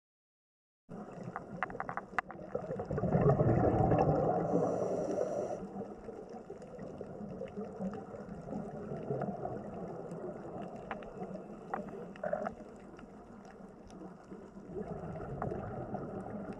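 Underwater water noise: a steady rushing wash with scattered faint clicks. It cuts in abruptly about a second in and swells loudest from about three to five seconds in.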